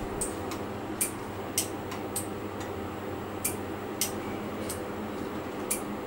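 Small, sharp clicks, about nine of them, irregularly spaced, over a steady low hum of bench equipment.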